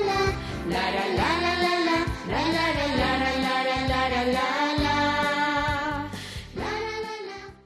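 Children's TV theme jingle: a sung melody with long held notes over a music backing track.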